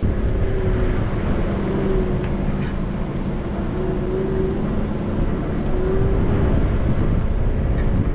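Nissan Patrol GR Y60 4x4 driving on a gravel track: a steady rumble of engine and tyres on the dirt, with wind on the outside-mounted microphone and a faint wavering engine tone.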